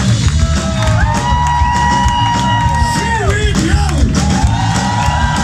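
Live punk rock band playing loud, with vocals, electric guitars, bass and drums. Two long held notes fall away at their ends.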